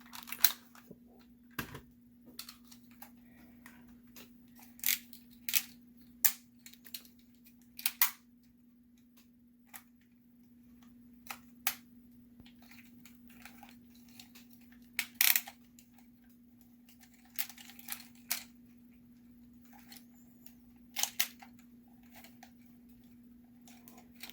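Irregular plastic clicks and snaps as the parts of a G1 Sky Lynx transforming toy are moved and locked into place during its change from transporter to lynx mode, over a faint steady hum.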